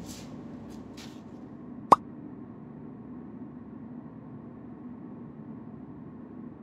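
A single short pop, a phone chat-message alert, about two seconds in, over faint room tone with a soft rustle of the phone being picked up.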